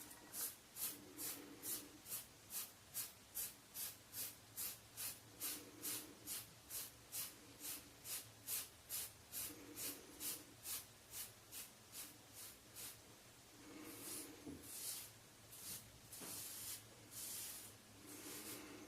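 Rockwell 6c safety razor scraping stubble off a scalp lathered with hair conditioner, in quick short strokes about three a second. About 14 seconds in, the strokes become fewer, longer and slower.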